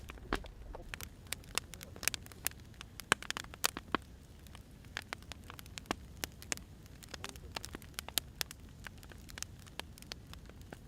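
Firewood crackling as it burns, with irregular sharp pops and snaps over a low, steady rumble of the fire.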